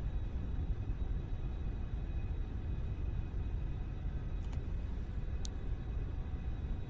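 Steady low background rumble, like distant running machinery, with a couple of faint light clicks about four and a half seconds in.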